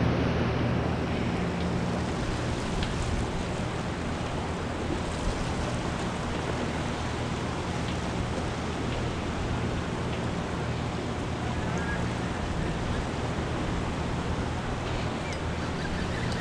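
Steady rush of turbulent river water churning below a dam's spillway.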